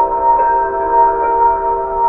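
Japanese municipal disaster-prevention radio chime broadcast over outdoor loudspeakers: a slow melody of bell-like tones, several notes held and ringing over one another.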